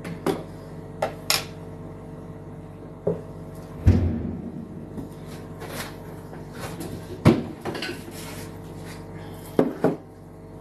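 Kitchen handling sounds: a series of sharp knocks and clatters of containers and utensils being set down and moved on a counter, with a heavier thud about four seconds in, over a steady low hum.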